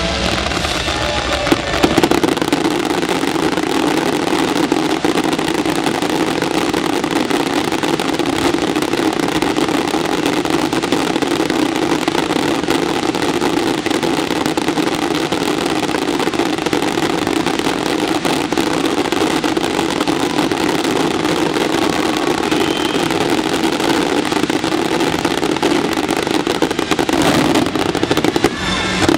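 Dense, unbroken fireworks finale barrage: many firework reports fired so close together that they run into one steady wall of bangs. Soundtrack music is heard briefly at the start before the barrage drowns it.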